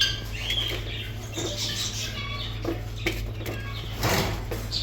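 Raccoon and bull terrier playing rough: short high squeaks and a quick run of chitters in the middle, with scuffling and pattering.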